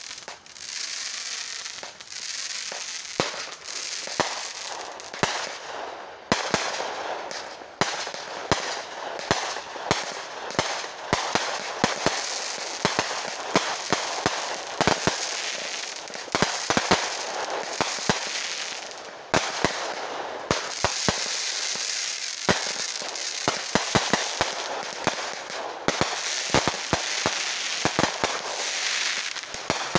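A consumer firework cake firing in rapid, irregular succession: dozens of sharp bangs of shots launching and bursting over a continuous hiss of burning effects.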